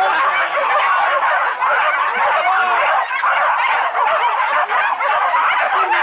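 A pack of hunting dogs yelping and baying all together, many short overlapping cries with no pause, as they run in pursuit of wild boar.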